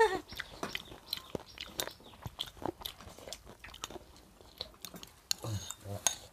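Close-up eating: chewing and biting with many small, sharp clicks scattered throughout, as people spoon and eat tiết canh (Vietnamese blood pudding) and boiled pig intestines. A brief low voice sound comes near the end.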